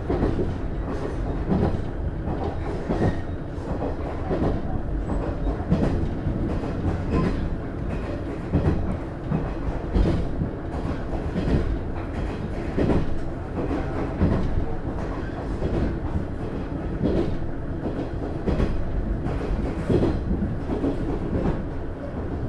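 Running sound inside a JR East KiHa 110 diesel railcar (DMF14HZA engine): a steady rumble of the car on the rails, with the wheels clicking over rail joints at an even beat, about once every second and a half.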